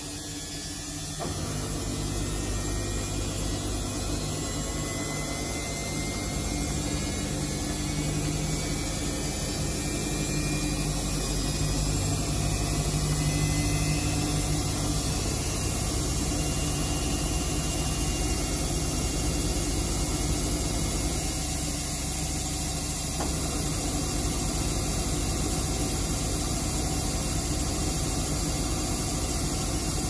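Samsung front-loading washing machine in its spin cycle, the drum turning at high speed with a steady motor hum and drum rumble that picks up about a second in.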